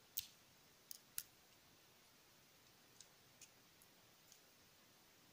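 Near silence broken by a handful of short, sharp clicks: three in the first second and a half, the first and third the loudest, then four softer ones a couple of seconds later.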